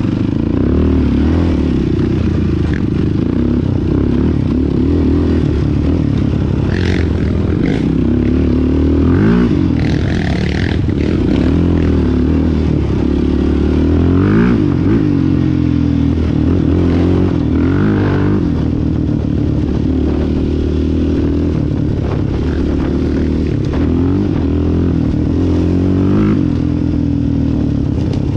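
Sport quad's single-cylinder four-stroke engine running under throttle, its pitch rising and falling again and again as the rider gets on and off the gas. Scattered clattering knocks come through, mostly in the middle stretch.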